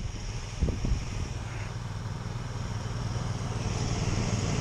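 Small tracked motorized snow tow's engine running steadily as it approaches, growing a little louder towards the end. Two short knocks sound about a second in.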